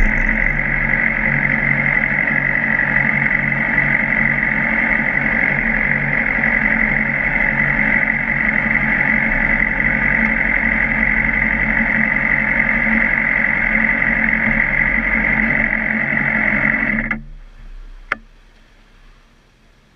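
Motorcycle cruising at a steady speed: even engine drone under a rush of wind noise. It cuts off abruptly about three-quarters of the way through, leaving quiet with a single sharp click shortly after.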